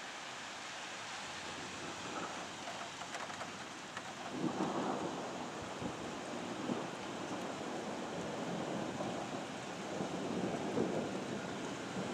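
Steady rain with thunder rumbling, the rumble swelling about four seconds in and again near the end.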